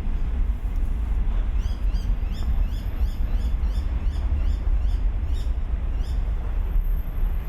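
A bird chirping over and over, short rising chirps a couple of times a second, over a steady low rumble.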